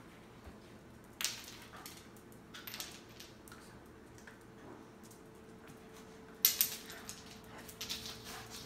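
An ice cube skidding and clattering across a ceramic tile floor as a Shiba Inu pushes it along with its nose and paws, with its claws clicking on the tile. Sharp knocks come about a second in and, loudest, near six and a half seconds.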